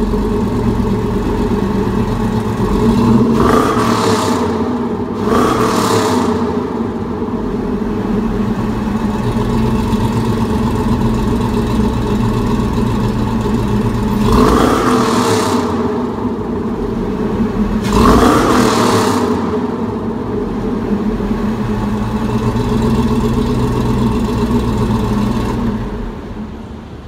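1971 Chevrolet C10 pickup's engine idling through its exhaust, blipped up in revs four times: two quick blips a few seconds in, another near the middle and one more a few seconds later, each dropping straight back to idle. The sound fades out near the end.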